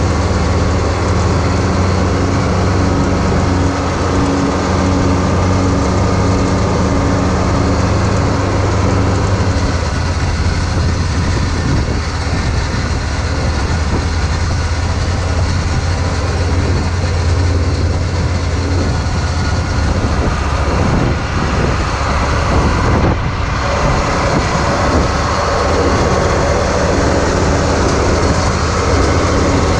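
John Deere 4250 tractor's six-cylinder diesel engine running steadily with a low, even hum, under a broad layer of noise.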